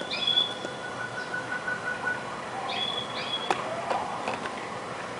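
Forest sounds from a film soundtrack played over speakers: birds calling with short high whistled notes and chirps, one held tone, and a sharp click about three and a half seconds in.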